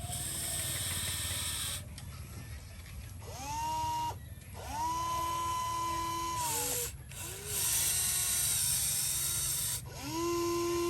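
A small electric motor whining: several times it spins up to a steady high pitch, holds for a second or two, then winds down, with abrupt breaks between the runs.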